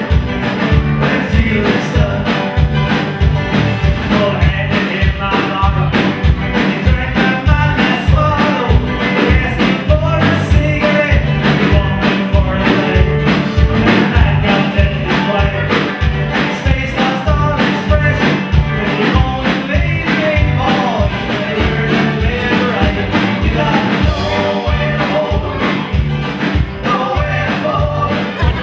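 A song with singing over a steady beat.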